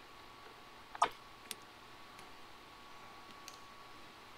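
Small hand tools and wiring parts being handled at a car's under-hood fuse box, making sharp clicks: one louder click about a second in, a lighter one just after, then a few faint ticks, over a faint steady high tone.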